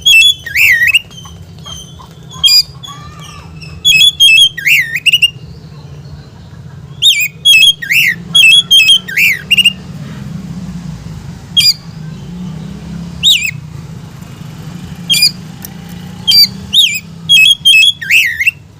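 Agitated Oriental magpie-robin (kacer) calling in loud clusters of rapid, harsh notes and swooping whistles, with short pauses between the bursts, the fired-up 'ngobra' call used to provoke other magpie-robins.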